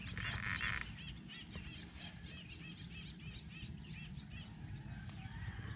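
Small birds chirping: many short, quick chirps repeating throughout, over a low steady outdoor rumble, with a short hiss in the first second.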